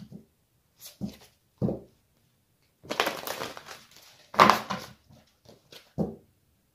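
A deck of oracle cards shuffled by hand, heard as several short bursts of rustling.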